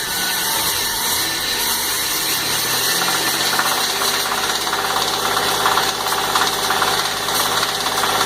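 A 1995 Pontiac Firebird's 3.8-litre V6 running. About three seconds in, its speed drops and settles to idle, with a fast, light knocking over it: the knock the owners put down to a rod knock in the sixth cylinder, after the oil light came on.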